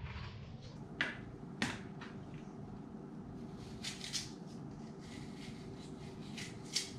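Small knife cutting into a hand-held apple slice to trim out the seeds and core: a few sharp clicks and small crisp scraping cuts, over a faint steady hum.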